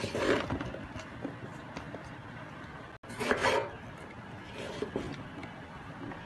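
Kitchen knife cutting eggplant on a wooden cutting board: short scraping, rustling bursts right at the start and about three seconds in, a weaker one near five seconds, and light knife taps in between.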